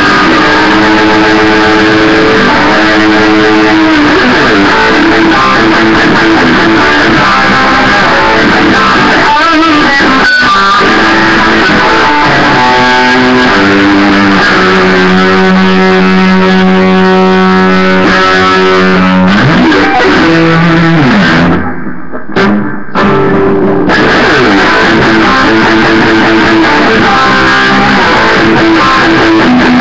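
Electric guitar played loudly, a line of held single notes that change pitch every second or so, some bent. There is a brief break in the playing about 22 seconds in.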